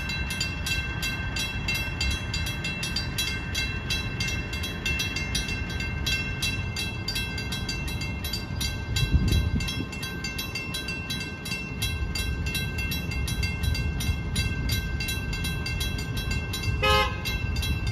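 Railroad crossing warning bells ringing rapidly and steadily over a low rumble. The rumble swells briefly about halfway through, and a short horn toot sounds near the end.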